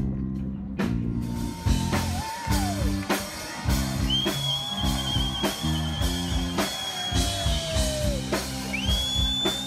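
Rock music with a drum kit beating steadily and electric guitar over a moving bass line; a long, high, wavering lead line comes in about four seconds in.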